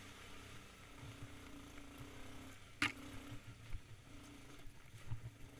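ATV engine running at low speed as the quad crawls through mud on a rough trail, with scattered knocks from the machine working over the ground and one sharp crack about three seconds in.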